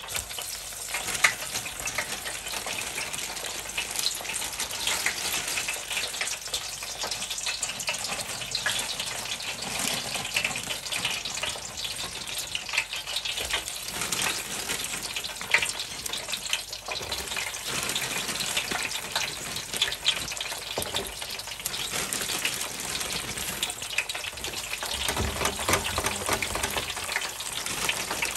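French fries deep-frying in bubbling oil in an electric deep fryer's wire basket: a steady dense sizzle and crackle, with a couple of sharper pops.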